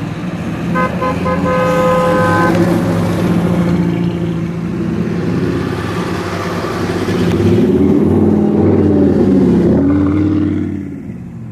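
Cars driving slowly past: a car horn sounds about a second in and holds for nearly two seconds over the engines. Near the end an engine revs up and down before the sound fades.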